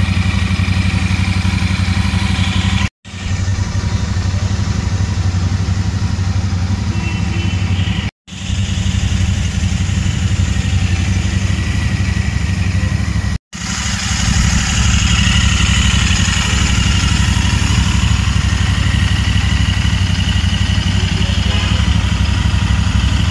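Royal Enfield Super Meteor 650's 648 cc parallel-twin engine idling steadily, heard up close. The sound breaks off for an instant three times and is a little louder from about two-thirds of the way in.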